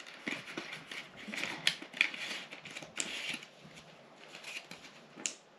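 A cardboard lure box being opened by hand and a clear plastic blister tray slid out of it: packaging rustling and crinkling with a quick run of sharp clicks, busiest in the first three seconds, then quieter with one more click near the end.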